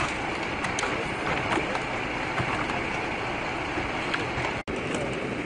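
Steady rushing hiss of water spray and steam as firefighters douse a burnt-out car wreck, with a few faint clicks. The sound cuts out for an instant a little over four and a half seconds in.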